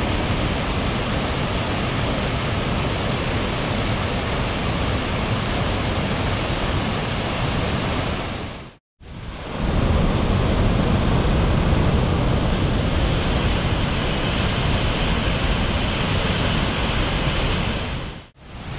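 Tännforsen waterfall and the rapids below it: a loud, steady, dense rush of falling water. The sound cuts out for a moment about nine seconds in, then resumes just as before.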